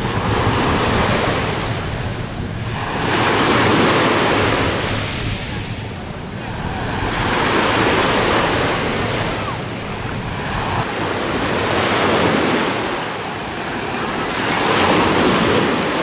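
Small sea waves breaking on a sandy shore. The surf swells and ebbs in slow surges, about one every four seconds.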